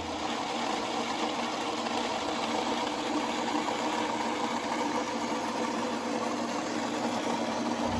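Old cast-iron grain grinder, belt-driven by an electric motor, running steadily as it grinds dried corn kernels into meal.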